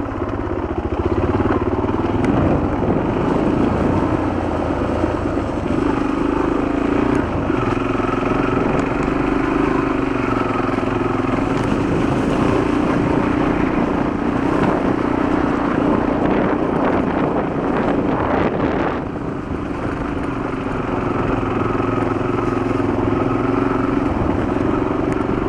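Honda XL250 trail bike's single-cylinder four-stroke engine running as the bike is ridden, its pitch shifting up and down with the throttle. It eases off briefly about nineteen seconds in.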